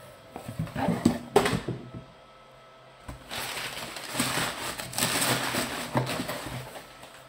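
Packaging handling: a few knocks and scrapes as a shrink-wrapped camera box is lifted out of a cardboard shipping carton, then a few seconds of rustling and scraping.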